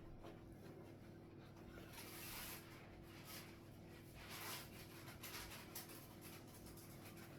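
Near silence: faint rustling and soft clicks of plastic Lego pieces being handled and fitted, over a low steady hum.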